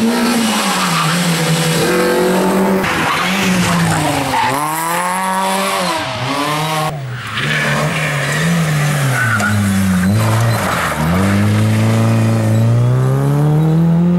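Rally car engine under hard driving, its pitch climbing and dropping again and again as the driver accelerates, lifts and shifts, with a brief cut in the sound about seven seconds in.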